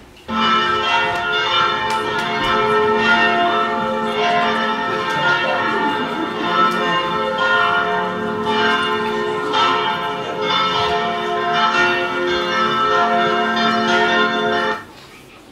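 A peal of bells ringing continuously, many overlapping tones with fresh strikes about every second. It starts suddenly just after the start and cuts off abruptly near the end.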